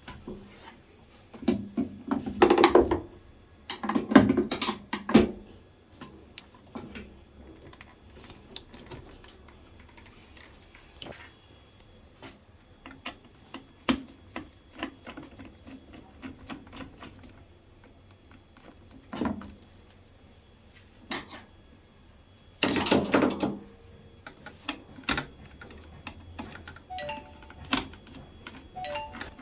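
Irregular clicks, knocks and clatter of hands and tools working on a washing machine's control panel, with louder bursts of knocking a few seconds in and again near the middle. A few short faint beeps come near the end.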